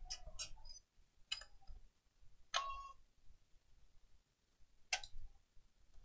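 A handful of faint, scattered clicks and light metallic taps as a PlayStation 4's metal shield and its loose screws are handled; one tap near the middle rings briefly.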